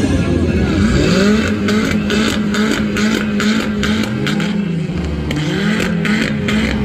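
Old car engine revving loudly, held at high revs, its note dipping and climbing again about a second in and near five seconds, with a rapid crackle over the top.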